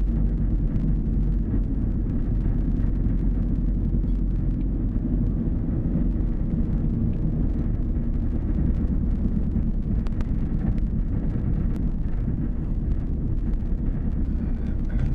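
Minibus engine running as the bus rolls slowly along a dirt road, a steady low rumble mixed with wind rumbling on the microphone.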